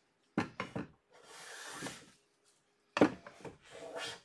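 Low-angle hand plane taking fine shavings off a thin strip of hoop pine, two strokes. Each starts with a few sharp knocks of the plane on the wood, followed by a soft hiss of the blade cutting.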